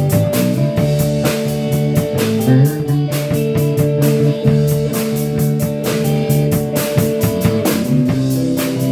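Rock band playing: sustained electric guitar chords over a steady drum-kit beat.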